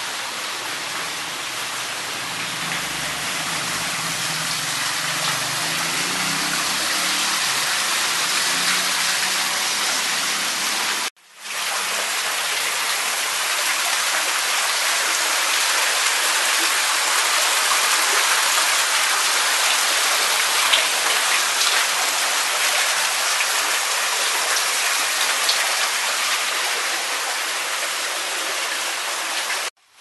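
Steady rushing and splashing of rainwater and floodwater, cutting out briefly twice.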